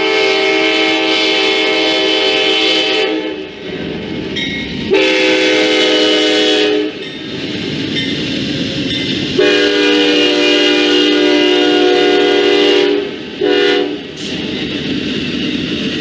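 Train's air horn sounding a chord of several notes in four blasts, three long ones and a short one near the end, over the steady rumble and wheel noise of a passing train.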